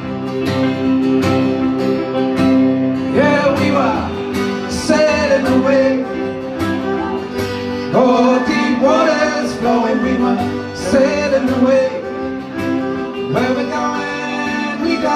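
Live acoustic band playing an instrumental passage of a country-folk song: two acoustic guitars strumming a steady rhythm while a fiddle plays sliding melody phrases over them.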